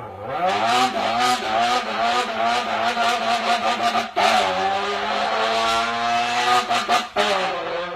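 A man's voice imitating a sports car engine revving. The pitch climbs at the start, then is held high with a wavering rattle, broken by short sharp cuts about four and seven seconds in.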